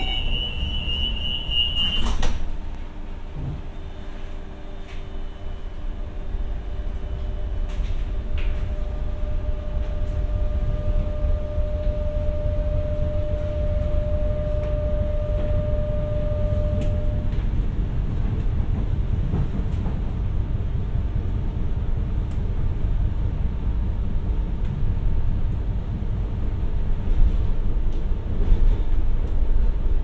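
Renfe Class 447 electric commuter train: a high door-warning tone ends and the sliding doors shut with a thud about two seconds in. After that comes the train's low running rumble, growing louder and then holding steady, with a faint steady hum for several seconds in the middle.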